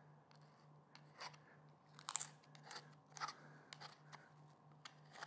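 Boning knife scraping along beef short rib bones while membranes are cut and torn away from between the ribs: a series of short scrapes and crackles, the loudest about two seconds in.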